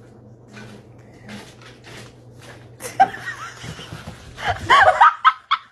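A person laughing in quick bursts from about three seconds in, loudest near the end, over a steady low hum; before that only faint light taps.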